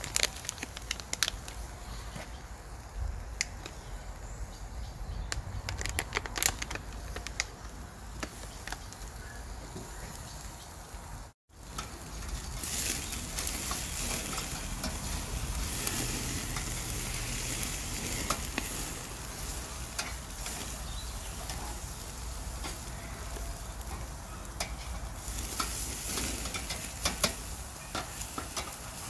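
Beef steak searing on the grate of a charcoal kettle grill, sizzling with scattered sharp crackles and pops. The sound cuts out for a moment about 11 seconds in, and after that the sizzle is denser and louder, with sausages also cooking on the grate.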